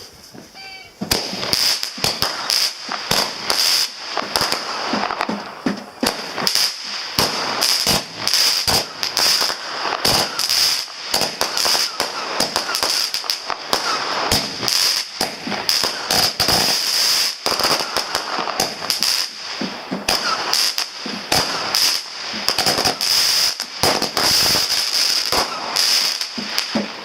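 Weco Fireflood 49-shot 14 mm firework battery firing. Shots launch in quick succession with sharp bangs and a continuous crackling and popping of the stars, starting about a second in.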